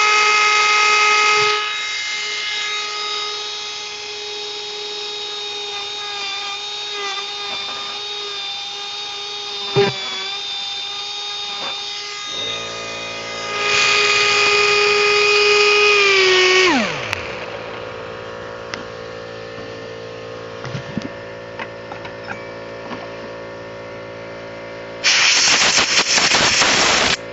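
1/8-inch air micro die grinder with a diamond bit running at high speed, grinding old caulking out of screw heads: a steady high whine that eases off, runs up loud again, then spins down with a falling whine about 17 seconds in. Near the end it comes on again loud and rough for about two seconds as the bit bites. A low steady hum starts about 12 seconds in.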